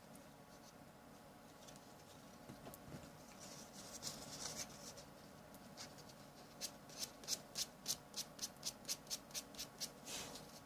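Hand scraping or sanding on a small plastic model part. It starts as faint, uneven rubbing, then from about six and a half seconds in becomes quick, regular strokes, about four a second.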